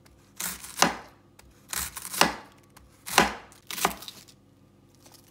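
Chef's knife slicing through a head of green cabbage onto a plastic cutting board: a few slow, spaced strokes, each a crisp crunch ending in a tap against the board.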